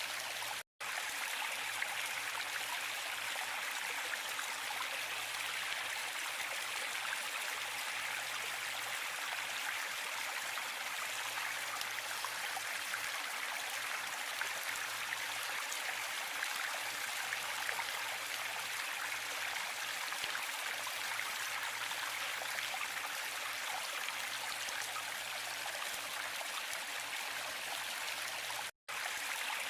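Waterfall: a steady rush of falling water, a bright even hiss without deep rumble. It cuts out to silence for an instant twice, just after the start and near the end.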